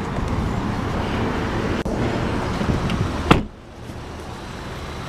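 A car door is shut with a single loud thud about three seconds in, after a stretch of handling and rustling. Under it, the Audi TT's 2.0-litre turbocharged four-cylinder idles steadily.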